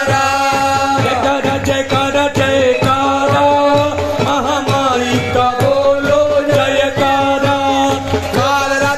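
Indian devotional music: a sustained, wavering melody line over a steady drum beat.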